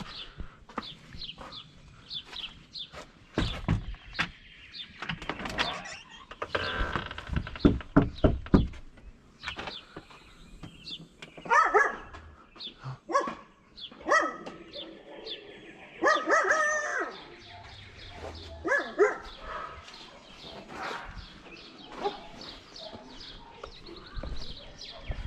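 Footsteps and knocks on a wooden deck, then several short pitched animal calls from about halfway through.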